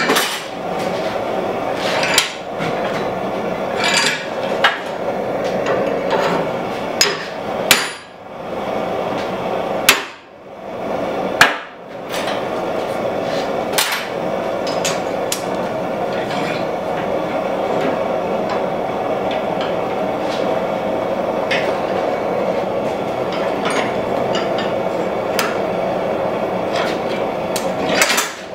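Hammer blows on a red-hot steel hatchet head clamped in a bench vise: sharp, irregular strikes, closer together in the first half and sparser later. A steady rushing noise runs underneath.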